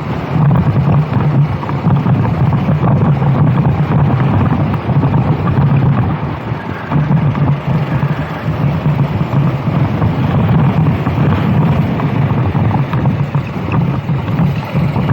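Racing kart engine running hard, with heavy wind noise on the microphone. The engine note drops briefly about six seconds in, then picks up again.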